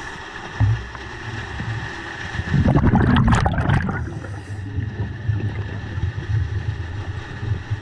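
Scuba diver's exhalation through the regulator: a burst of bubbles about two and a half seconds in, lasting over a second. A steady high tone runs underneath throughout.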